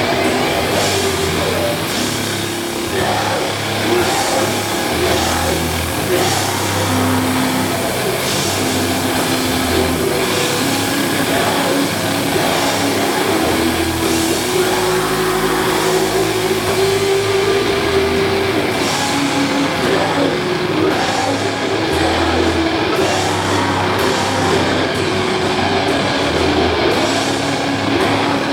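Doom metal band playing live: distorted guitars and bass holding long, heavy notes over drums, at full volume.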